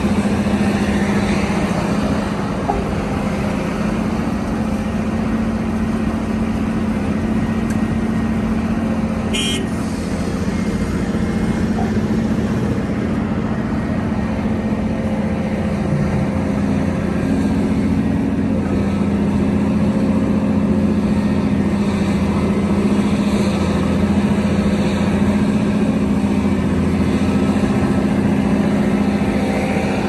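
Volvo EC700B excavator's big six-cylinder diesel engine running steadily under hydraulic load, with a deep hum that rises and falls slightly in pitch as it works. A brief high-pitched sound cuts in about nine and a half seconds in.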